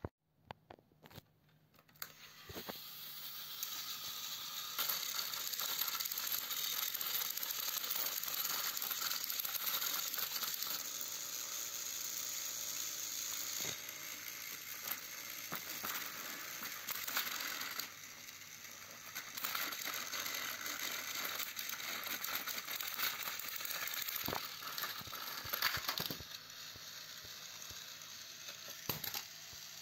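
Battery-powered toy train engines running on plastic track, their small motors and gearboxes whirring with a rattling clatter as they push against each other, with sharp clicks here and there. The whirring starts about two seconds in and gets quieter near the end.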